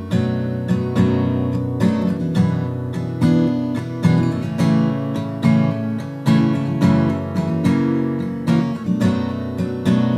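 Acoustic guitar strumming chords in a steady rhythm, a few strokes each second, during an instrumental break between sung lines.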